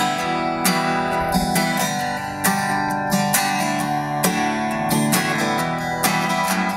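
Acoustic guitar strummed in a steady rhythm, playing the chords of a country song with no singing over them.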